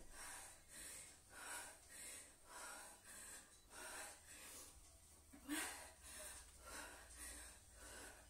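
A woman breathing hard from exertion during a dumbbell workout: faint, rhythmic breaths about twice a second, with one louder breath a little past halfway.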